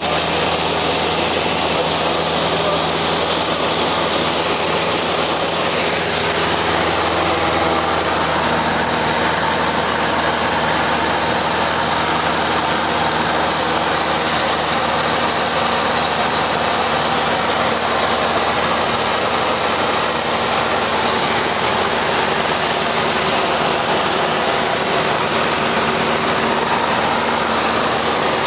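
Cessna 172's piston engine and propeller running steadily, heard from inside the cockpit. The engine note changes about six seconds in, then holds steady again.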